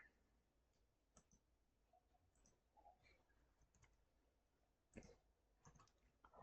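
Faint, scattered clicks of a computer mouse and keyboard, about a dozen over a few seconds, the clearest about five seconds in, over near silence.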